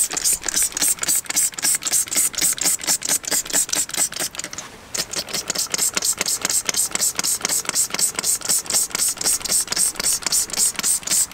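Trigger spray bottle of wheel cleaner pumped rapidly, about five quick hissing squirts a second, with a brief pause about five seconds in.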